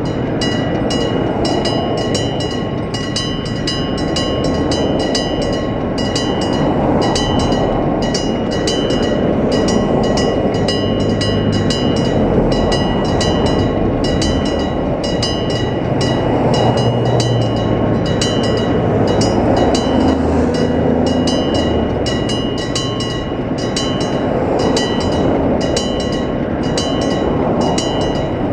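Level-crossing alarm bell, a Nippon Signal EG1003 AC electric bell, ringing continuously with many rapid strikes a second over steady ringing tones. Under it a train rumbles through, swelling and fading.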